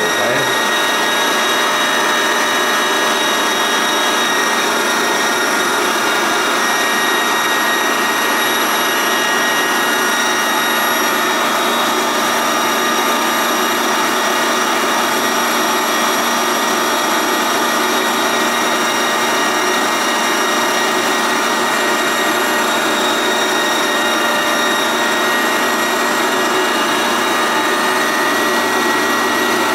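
Stand mixer running steadily with its whisk attachment, beating creamed butter with icing sugar: a constant electric-motor whine with no change in speed.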